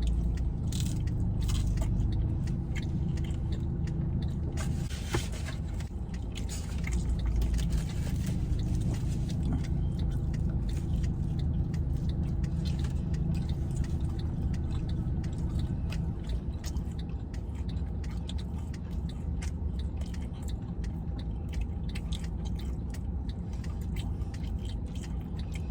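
A person chewing pizza close to the microphone, with many small clicks, over a steady low rumble.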